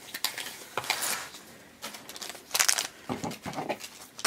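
Crinkly plastic wrapper of a toy blind pack being handled and snipped open with scissors, in irregular rustles, the loudest a little over halfway through.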